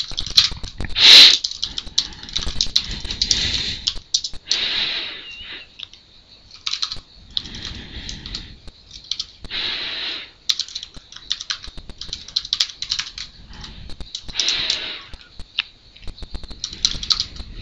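Computer keyboard typing: irregular clusters of keystroke clicks with short pauses between them. A few short hiss-like sounds fall between the keystrokes, the loudest about a second in, over a faint steady high whine.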